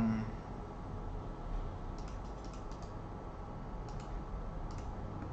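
Faint clicking of a computer mouse: a quick run of clicks about two seconds in, then single clicks near four and five seconds, over a steady low electrical hum. A brief low sound right at the start is the loudest moment.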